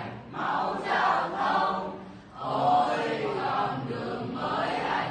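A class of high-school students singing a Vietnamese revolutionary song together in chorus, with a brief break between phrases about two seconds in.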